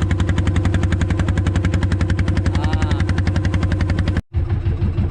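Engine on a squid-fishing boat running steadily, with a fast, even thumping. It cuts out for a moment near the end and then resumes.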